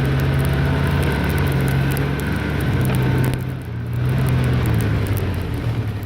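Snowmobile engine running steadily while towing, easing off briefly about halfway through before picking back up.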